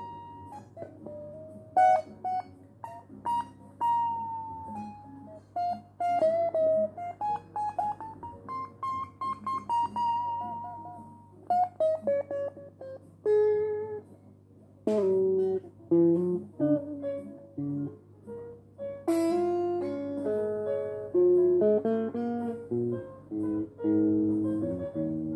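Electric guitar played solo, unaccompanied. It plays single-note lead lines with string bends and slides, then switches to chords and double-stops about halfway through. A steady low hum runs underneath.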